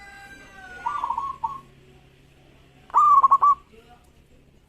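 Zebra dove (perkutut) cooing. A softer phrase comes about a second in, then a loud phrase about three seconds in: a rising coo followed by several quick staccato notes.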